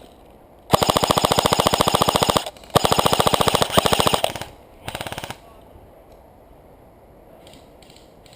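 Airsoft electric rifle, an Echo 1 XCR, firing full-auto: two rapid bursts of about a second and a half each, then a short third burst.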